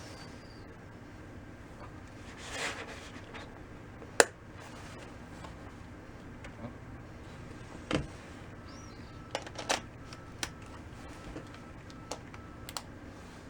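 Scattered sharp clicks and small knocks of a disassembled camera zoom lens and its small parts being handled and fitted, with a brief rustle about two and a half seconds in and the sharpest click about four seconds in.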